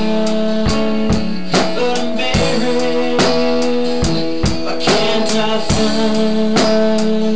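A Pearl drum kit played along with a rock song: drum and cymbal hits about twice a second over held chords that change every second or so.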